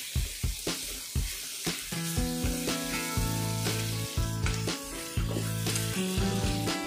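Chicken and spice masala sizzling as it fries in a pan on a high flame, with a wooden spatula scraping and turning it a few times a second. Background music comes in about two seconds in.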